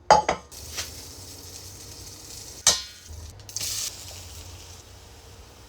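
Metal cookware and utensils clattering while cooking: a sharp clank right at the start and a louder ringing clank near the middle, followed by a brief hiss.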